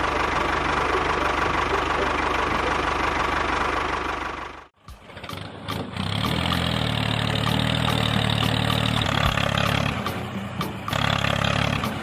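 Miniature model tractor running with a steady motor whine. It cuts off about five seconds in and gives way to a lower, stronger motor sound with scattered clicks as a second model tractor drags a tine cultivator through sand.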